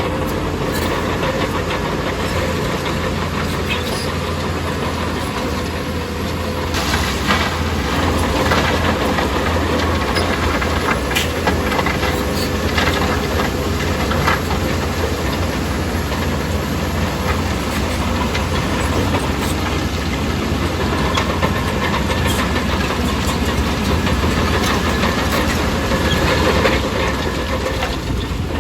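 Bulldozer's diesel engine running steadily, with irregular clanks and knocks over it.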